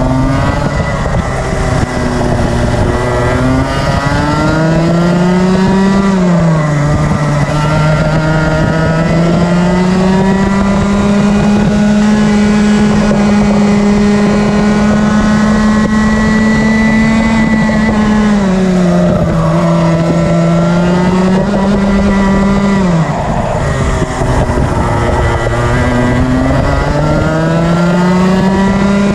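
Rotax Max Senior 125 cc single-cylinder two-stroke kart engine at racing speed, heard onboard. Its note climbs hard out of each corner and drops sharply three times as the driver lifts for the next one, with a long steady high note on the straight in the middle.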